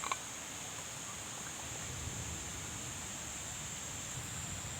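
Insects, crickets or similar, keeping up a steady high-pitched drone over a faint hiss, with a single short click at the very start.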